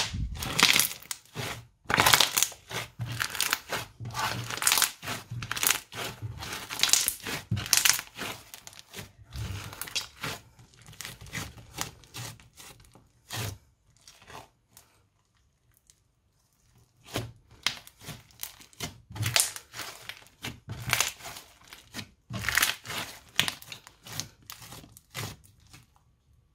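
Hands squeezing, poking and pressing crunchy slime studded with small beads, giving rapid, dense crackles and pops. The crackling stops for about three seconds past the middle, then starts again.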